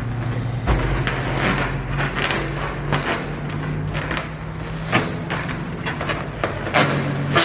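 Hands rubbing, pressing and patting a large inflated latex balloon: irregular rubbery strokes with a thump about a second in, over a low steady hum.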